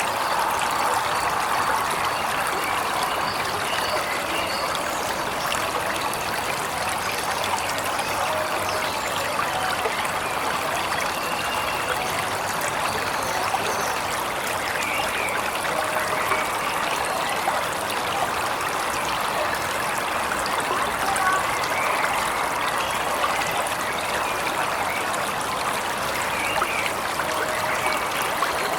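Waterfall rushing steadily, with faint short bird chirps now and then over the water.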